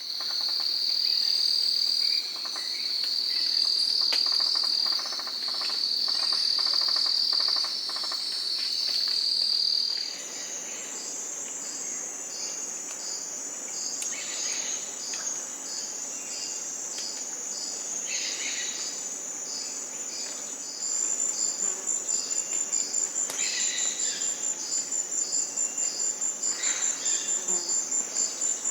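Chorus of jungle insects: a loud, steady, high-pitched buzzing trill with three short breaks, then giving way to a higher continuous trill over a regular pulsing chirp about twice a second. A faster pulsing trill joins about two-thirds of the way through.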